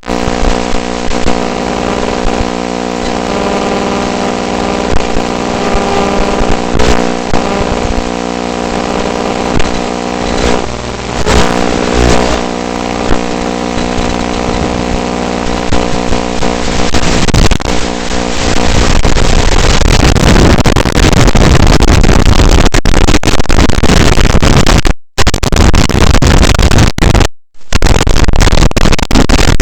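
Electric motors of an FPV drone humming steadily at a near-constant pitch. After about 18 seconds they give way to a loud, even rushing noise that cuts out briefly twice near the end.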